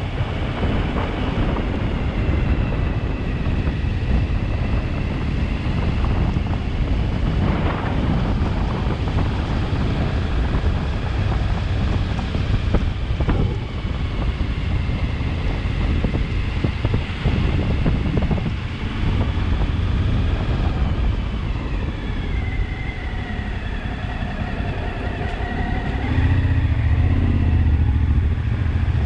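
Motorcycle engine running under way, with heavy wind rush on the microphone. The engine note falls and rises a few times, and the low wind rumble grows louder near the end.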